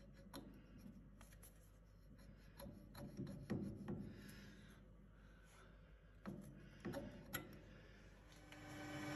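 Faint clicks and rubbing as a micrometer is closed onto a turned steel pin held in a lathe chuck and taken off again, with a few small knocks about three and six to seven seconds in. Near the end a lathe motor starts up, its steady hum rising.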